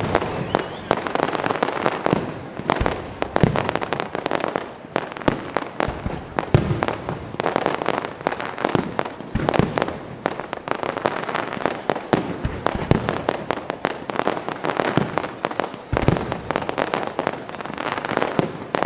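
Fireworks display: a dense, unbroken string of bangs from bursting shells, with a heavier boom about every three seconds.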